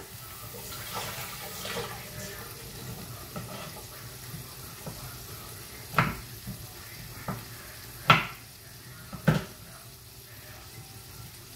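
Kitchen tap water running briefly into the sink, then three sharp knocks of kitchen knife and utensil work on the counter, about two seconds apart.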